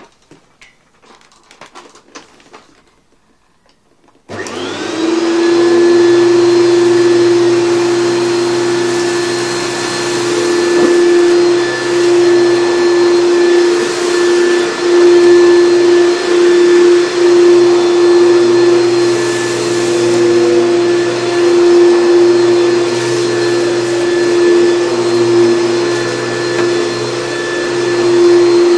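A few faint clicks, then about four seconds in a 1994 Hoover Turbopower 2 U2462 upright vacuum cleaner switches on, its motor spinning up quickly to a loud steady hum. It runs on, the sound swelling and dipping as the cleaner is worked over the carpet.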